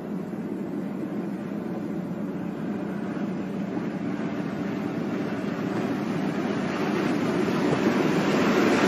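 Diesel locomotive pushing a wedge snowplow through deep snow: a steady rumbling rush of engine and thrown snow that grows louder and brighter as it nears.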